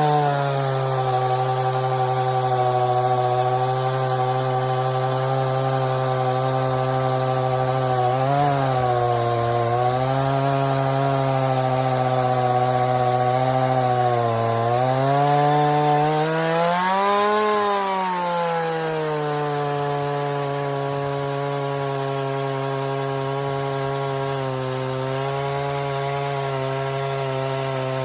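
Stihl MS170 two-stroke chainsaw running under load, ripping lengthwise through a log in a chainsaw mill with a cheap aftermarket chain. The engine holds a steady pitch that sags briefly a couple of times, rises and falls back about halfway through, then runs on slightly lower and steady.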